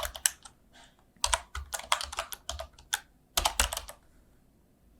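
Computer keyboard typing in short bursts of keystrokes, the clicks coming in clusters with soft thuds on the desk, stopping for about the last second.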